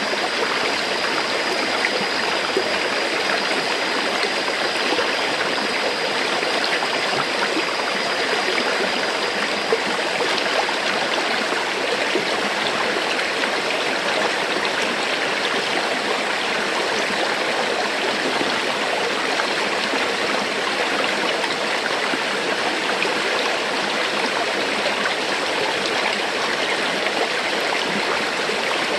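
River water flowing steadily, a continuous even rush with a light gurgle.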